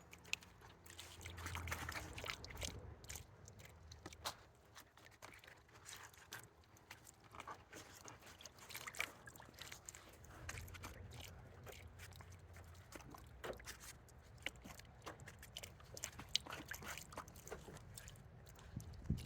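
Faint, scattered light clicks and knocks of handling, as plastic floaty balls and pool-noodle pieces are set into the fountain's water, with a low rumble twice.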